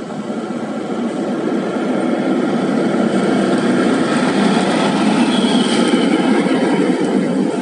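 Diesel engine and tyres of a Hino 500 dump truck approaching and passing close by, growing louder to a peak about five seconds in, then easing slightly.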